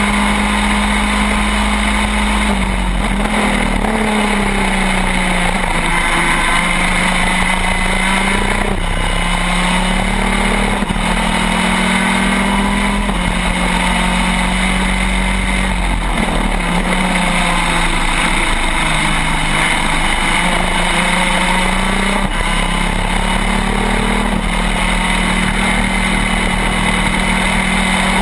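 Shifter kart's two-stroke engine at full racing pace, its pitch stepping up and down repeatedly as it shifts gears, brakes and accelerates. Heavy wind and road noise on the onboard microphone.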